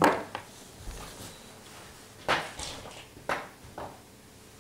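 Handling noises from swapping a flashlight into a universal headlamp diffuser: a few short clicks and scrapes, with the loudest rubbing scrape a little over two seconds in.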